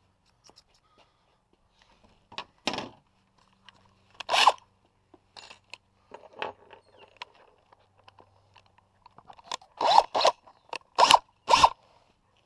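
Hands handling small hardware and tools: scattered short scrapes and crunchy clicks, with a quick run of four louder sharp ones near the end.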